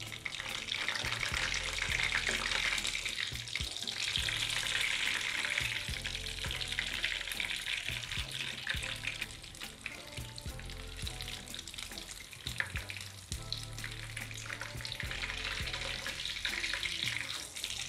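Chicken shami kababs shallow-frying in hot oil in a non-stick pan: a steady crackling sizzle, dotted with sharper pops.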